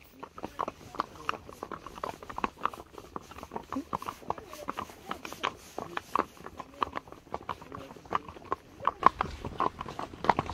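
Horse hooves clopping, with irregular sharp strikes a few times a second.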